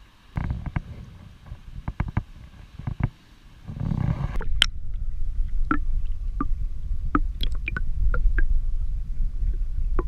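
Creek water heard by a camera dipped beneath the surface: a few sharp knocks and splashes at first, then from about four seconds in a muffled low rumble of flowing water with scattered small clicks.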